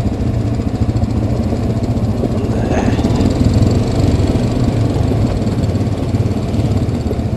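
Honda Rancher 420 ATV's single-cylinder engine running steadily at low speed while the quad rolls down a trail of loose rock.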